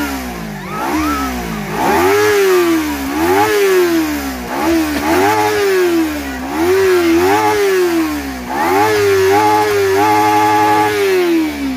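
Kawasaki Ninja sport bike engine free-revved while parked, its throttle blipped up and falling back about eight times. Near the end it is held high for a couple of seconds.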